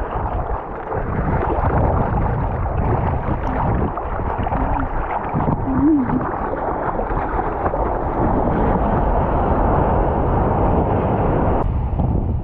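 Seawater sloshing and splashing against an action camera held at the waterline, mixed with wind on the microphone. A brief gurgle comes about six seconds in.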